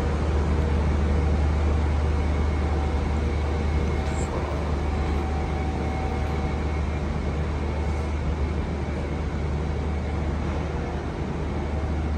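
Steady low drone of the Indian Pacific passenger train standing at the platform, an even hum that holds without change in pitch or level.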